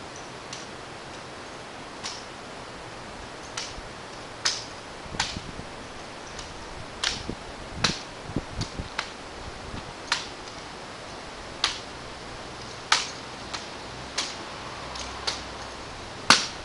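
Sharp slaps and clacks of a drill rifle striking the hands as it is worked through exhibition drill moves, coming at irregular intervals, the loudest near the end, over a steady hiss.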